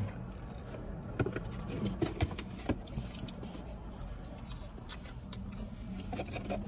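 Close eating sounds: biting and chewing fried chicken tenders and a chicken sandwich, with scattered short clicks and crinkles from handling the food and containers, over a low steady hum inside a car cabin.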